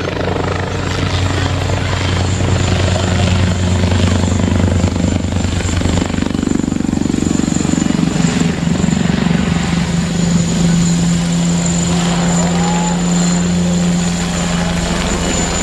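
Eurocopter Tiger HAD attack helicopter flying low and close overhead: a loud, steady rotor and engine drone with a high turbine whine above it from its twin turboshaft engines.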